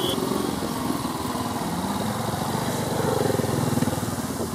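Classic trials motorcycle engine running, with a rev that rises to a peak about three seconds in and then drops back.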